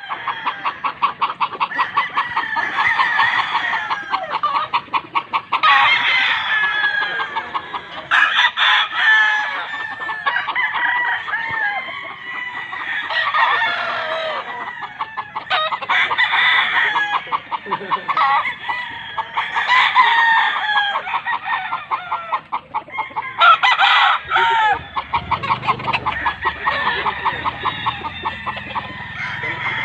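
A yard full of gamecocks crowing one after another and clucking, with crows overlapping every couple of seconds.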